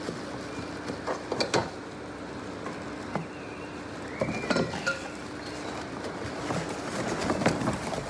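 Cardboard packing and plastic-wrapped metal grill parts being handled and pulled out of a box: rustling with short bursts of clinks and knocks about a second in, around four and a half seconds, and near the end.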